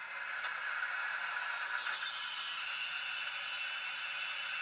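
Steady steam hiss from a Dapol Large Prairie model locomotive's DCC sound decoder (Jamie Goodman sound file on a LokSound 5), played through a small speaker in the smokebox while the locomotive stands still. A higher-pitched hiss joins about two seconds in.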